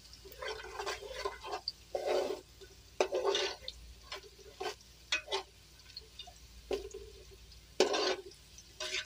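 A metal ladle stirring and scraping sliced onions frying in oil in a large aluminium pot, in irregular strokes with short pauses. The onions are starting to brown.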